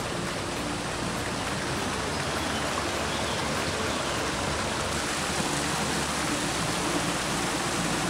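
Mountain stream tumbling over boulders in small cascades: a steady rush of water.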